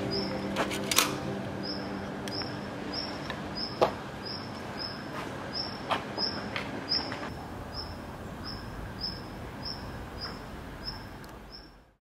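A short high chirp repeated about twice a second, with a few scattered clicks, fading out to silence near the end.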